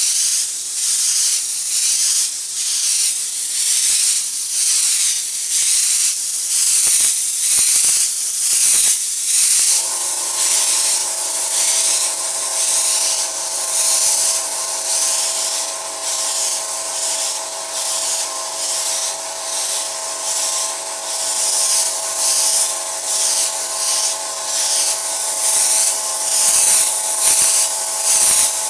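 Airbrush spraying paint: a high air hiss pulsing in repeated strokes, roughly one a second, as the gun's trigger is worked back and forth. A steady hum joins underneath about ten seconds in.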